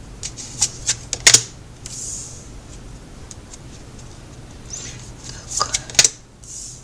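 Tarot cards being handled on a table: a few sharp card snaps early on and again near the end, with two soft sliding swishes between and after them.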